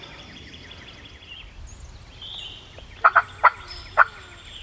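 Wild turkey tom gobbling about three seconds in: a quick rattling string of notes, each falling away, with the bird answering the hunter's calls.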